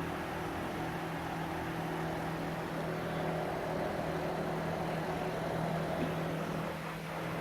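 Soft snoring, one slow breath swelling and fading through the middle, over a steady low hum.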